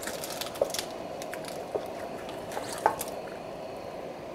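Wet cardoon stalks rustling and squishing as they are handled in a colander and dropped into a pot of boiling water, with a few light knocks, the sharpest about three seconds in. The pot bubbles steadily underneath.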